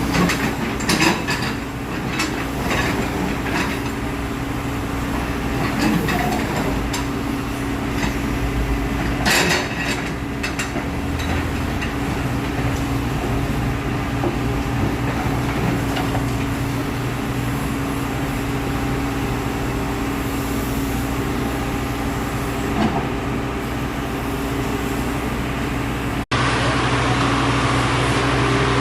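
Backhoe's diesel engine running steadily, with a few sharp metallic clanks from the machine about a second in and again around nine seconds in. The sound cuts out for an instant near the end at an edit, then the engine carries on.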